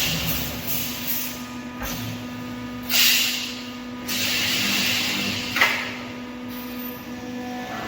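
Automatic 3D wire mesh panel welding machine running: a steady hum under two bursts of hissing, the first about three seconds in and a longer one just after, with a sharp click a little past the middle.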